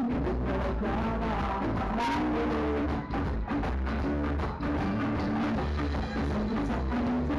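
Live rock band playing, with a drum kit keeping an even beat under electric bass and guitar, and a melody line on top that slides up and down in pitch.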